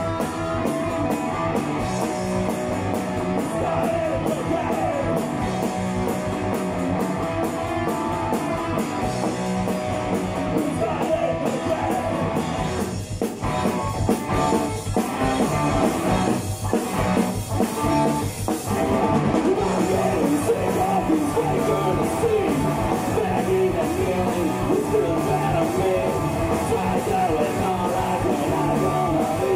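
Live rock band playing electric guitars, bass and drums, with a few short stop-start breaks near the middle.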